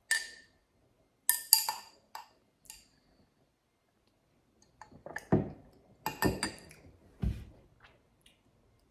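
A drinking straw clinking against the inside of a cut-glass tumbler as a drink is stirred: a handful of short, sharp clinks in the first three seconds. A few softer sounds follow in the second half as the drink is sipped through the straw.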